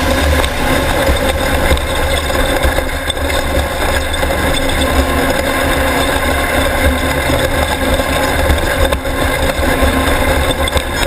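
Onboard sound of a Class 1600 off-road race car under way: its engine running steadily amid a dense, continuous rushing noise.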